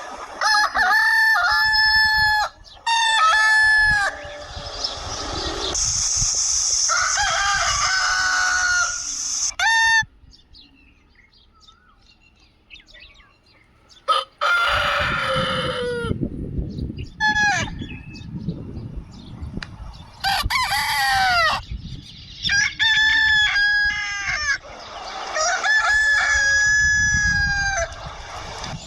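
Desi (village) roosters crowing one after another, each crow a long held call that drops in pitch at the end, with some hen clucking between them. A quieter gap comes about ten seconds in, and crowing resumes around fourteen seconds.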